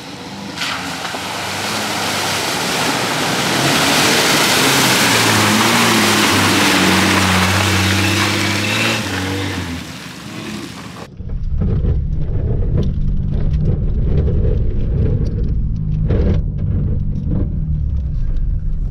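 A 4WD's engine revving as it drives through wet mud, with a loud rush of tyre and splash noise that swells as it passes. About eleven seconds in this changes abruptly to the low rumble of an engine heard from inside a cab, with knocks and rattles as the vehicle crawls over rough ground.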